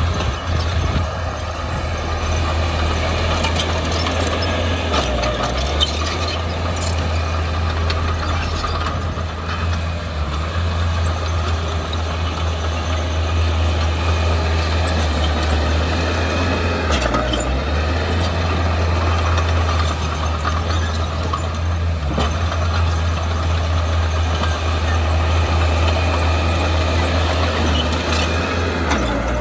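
Heavy diesel earthmoving machinery running steadily with a deep engine hum that dips briefly a few times, and a few brief knocks.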